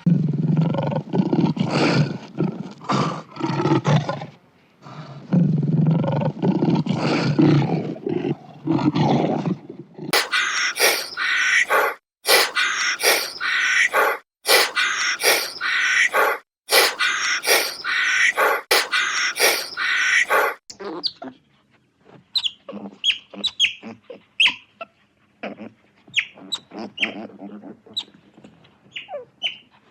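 Animal calls: two spells of low, rough roaring calls, then higher, harsh calls in quick pulses, ending in scattered short chirps.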